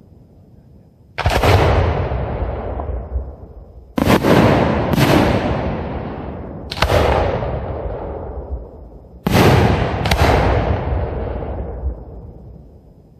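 Aerial fireworks shells bursting overhead: six loud booms, two of them in quick pairs, each trailing off in a long rolling echo.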